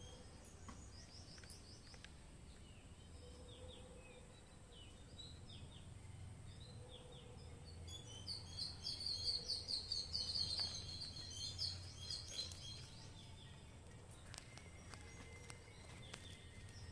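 Bird chirping: scattered short high chirps, then a fast run of loud chirps from about eight to twelve seconds in, over a low steady background hum.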